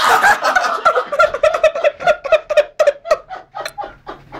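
A man laughing hard in quick, rhythmic bursts, about five a second, tapering off toward the end.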